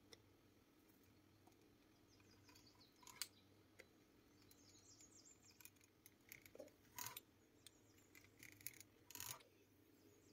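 Faint, scattered clicks and light scrapes of a fluted metal pastry wheel rolled through a thin sheet of dough on a wooden board, over a low steady hum.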